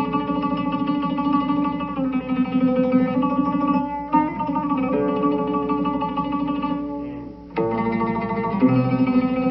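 Solo oud improvising a taqasim in maqam Ajam: held notes sustained by rapid repeated picking, one phrase fading away about seven seconds in before a strong new attack opens the next.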